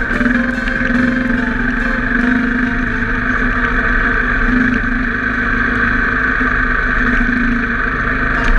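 Enduro motorcycle engine running at a steady, even pace while riding on a gravel track, with a constant rush of noise and small ticks from the loose surface.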